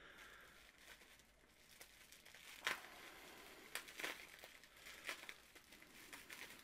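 Quiet crinkling of packing paper and plastic bubble wrap being pulled and cut open from around a small paint bottle, with a few sharper crackles.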